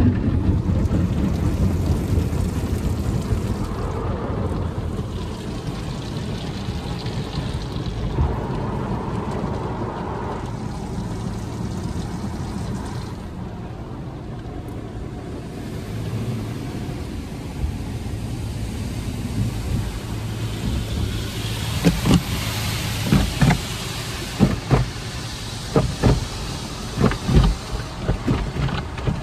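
Belanger/Econocraft tunnel car wash heard from inside the car's cabin: spinning brushes rub along the body with a steady low rumble, then water jets hiss against the glass. From about two-thirds of the way in, cloth wash strips slap the windshield and roof in a quick run of heavy thuds.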